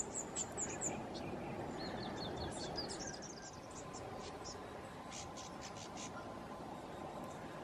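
Small birds chirping: a quick run of high, evenly spaced notes right at the start, another rising run of chirps about two and a half seconds in, and scattered short high calls around five to six seconds in, over a steady background hiss.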